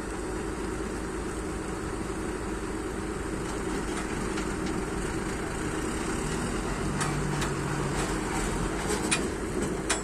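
Doosan excavator's diesel engine running steadily, with a few sharp knocks in the last few seconds.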